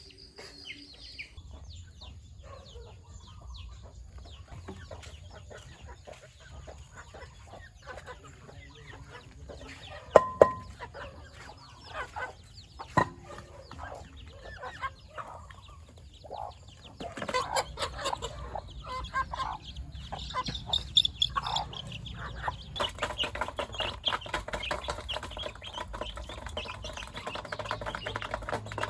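Chickens clucking on and off, the calls growing busier in the second half, with a couple of sharp knocks around the middle.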